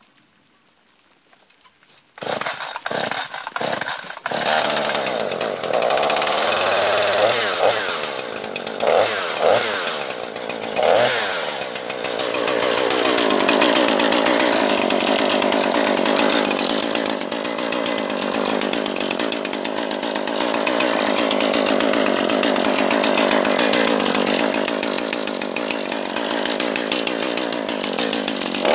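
Jonsered CS 2240 two-stroke chainsaw starting after a couple of seconds of quiet: a few short firing bursts, then the engine catches and runs. It is blipped up and down a few times, then held running at speed with its pitch wavering for the rest.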